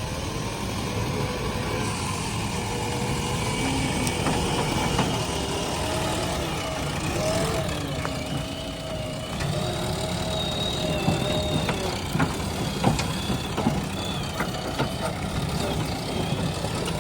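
JCB 3DX backhoe loader's diesel engine running steadily while it works, with several sharp knocks and clanks in the second half.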